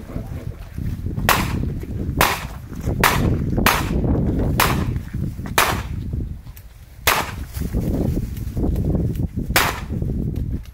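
Revolver shots fired in a practical shooting stage: about eight sharp cracks, coming every second or so at first, then with longer pauses between the last three.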